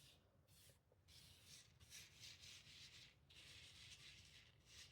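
Faint, repeated swishes, about one a second, of a brush being swept back and forth across a rhinestone template to settle loose rhinestones into its holes.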